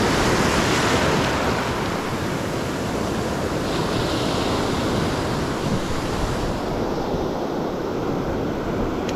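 Ocean surf breaking and foamy wash running up the sand around the feet, with wind on the microphone. The wash is loudest in about the first second, then eases.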